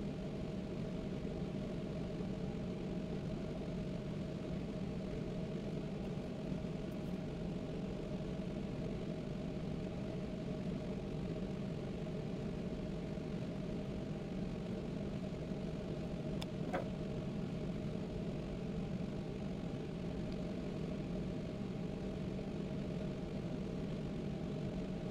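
Steady low mechanical hum of a machine running in the background, with one brief click about two-thirds of the way through.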